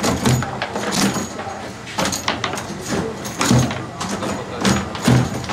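Foosball game in play on a wooden table: metal rods sliding and rattling, and plastic players striking the ball. The result is irregular sharp knocks and clacks, several a second.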